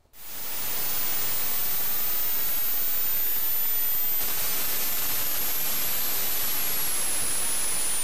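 Steady static hiss from a spacecraft descent microphone recording, which the narration gives as the Phoenix lander's audio of its entry into the Martian atmosphere. It fades in over the first second, and a faint high whistle slowly falls in pitch through it.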